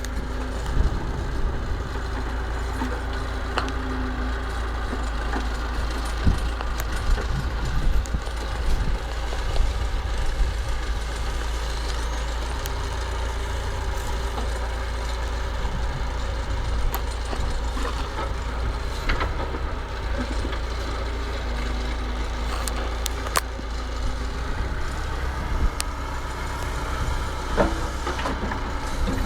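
Massey Ferguson 50HX backhoe loader's diesel engine running steadily, with scattered short knocks and clanks.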